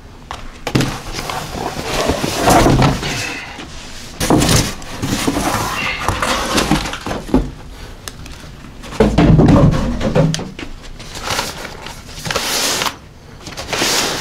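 Cardboard shipping boxes being handled: flaps and cardboard scraping and rustling, with several dull thuds as boxes are moved and set down.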